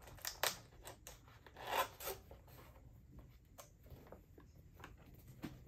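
Cardboard box lid being worked loose and slid up by hand: papery scraping and rubbing of cardboard on cardboard, loudest in one longer scrape about a second and a half in, with a few short taps and ticks around it.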